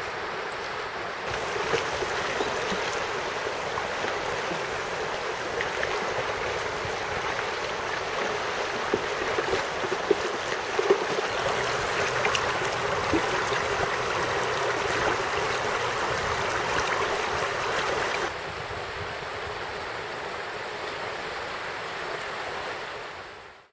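Shallow river rushing over stones in riffles: a steady noise of running water that gets louder about a second in and drops back near the end, with a few brief sharp sounds near the middle.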